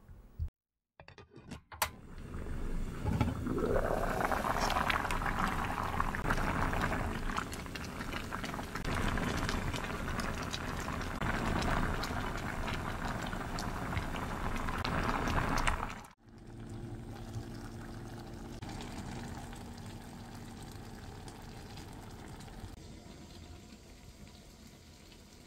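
Red wine with dried figs bubbling at a full boil in a stainless pot, a dense crackling hiss of bursting bubbles. It stops abruptly at a cut a little past the middle, leaving only a quieter, steady background noise.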